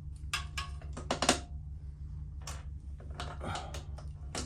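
Small metal parts and hand tools clicking and clinking while exhaust hardware is fitted by hand, with a quick cluster of knocks a little over a second in and scattered clicks after. A steady low hum runs underneath.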